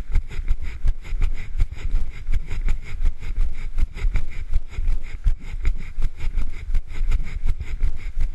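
Wind rumbling over a body-worn camera's microphone during a run, with a steady rhythm of knocks as each running stride jolts the camera.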